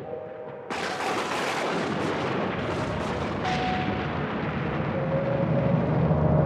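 Eerie intro music with low held tones, broken by a sudden rushing, crashing burst of noise under a second in and a second one about three and a half seconds in, then a low rumble swelling near the end.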